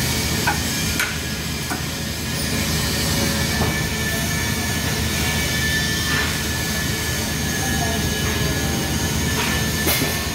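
TIG welding arc on 4-inch carbon steel pipe, giving a steady buzzing hiss with a low hum under it as the torch's ceramic cup is walked along the cap pass. A few light clicks come through now and then.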